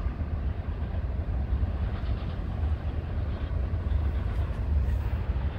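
Freight train rolling by, a steady low rumble with no horn or sudden knocks.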